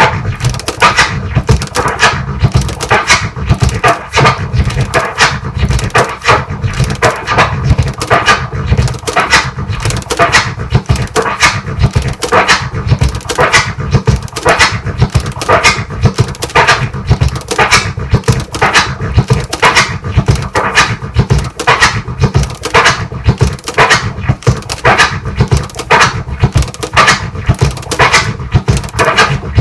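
Turntable scratching of a kick and snare drum sample, cut into a fast even rhythm by crossfader clicks. Each cycle is a 3-click orbit on the forward push and a 3-tear pause on the pull back, giving eight sounds per cycle, repeated without a break.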